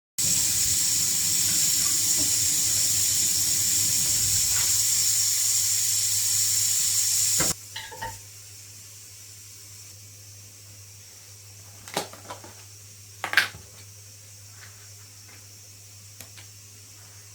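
Kitchen tap running in a steady stream into a sink, shut off about seven and a half seconds in. After it stops, a low steady hum remains, with a few sharp clinks near the end.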